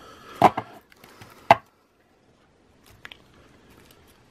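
Stacks of trading cards in clear plastic card holders tapped and set down on a tabletop: a few sharp clacks, the loudest about a second and a half in.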